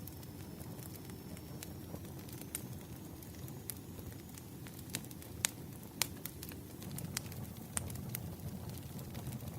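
Burning firewood crackling: irregular sharp pops and snaps, a few of them louder, over a low steady rumble of the flames.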